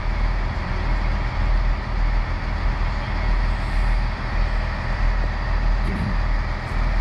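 Engine running steadily with a continuous low rumble and a wide, even noise over it.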